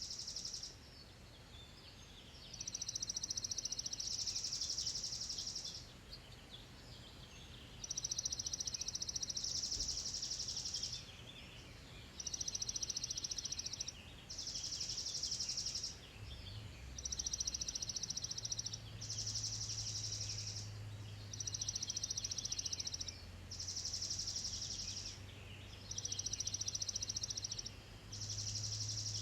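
Early-morning birds chirping. A high, rapid trill repeats about every three seconds, each trill lasting roughly two seconds, over scattered softer chirps and a faint low hum.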